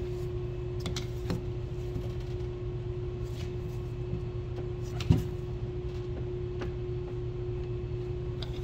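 A steady low hum with a few short metallic clicks and knocks of hand tools at a high-pressure fuel pump being pried apart; the sharpest knock comes about five seconds in.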